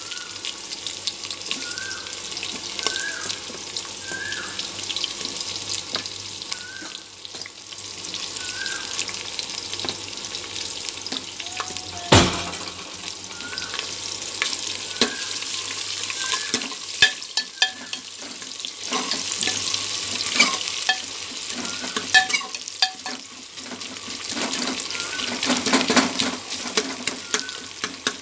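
Chopped onions sizzling as they fry in hot oil in a pressure cooker, with a ladle clicking and scraping against the pot as they are stirred. One sharp knock about twelve seconds in.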